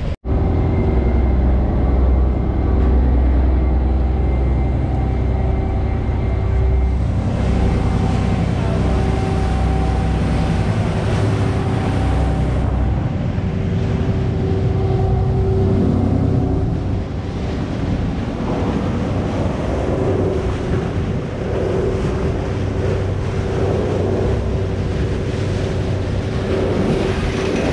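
Party fishing boat's engines running steadily underway, with a deep low rumble, wind on the microphone and water rushing past the hull; the wind hiss grows louder for several seconds in the middle.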